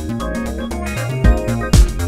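Electronic background music with synthesizer notes; a heavy kick-drum beat comes in a little over a second in.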